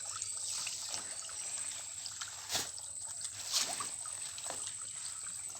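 Water trickling steadily, with two short sharp splashes about a second apart near the middle.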